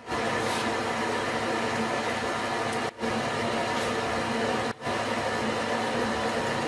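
An electric power tool's motor running steadily, with a hiss of air. It drops out abruptly twice for a moment and comes straight back.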